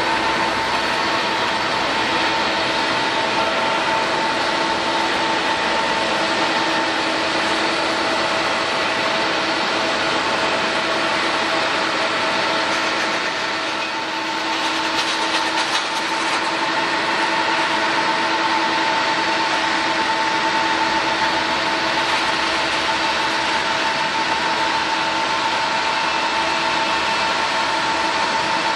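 Jet airliner engines running steadily: an even rush of air with a few held whining tones over it.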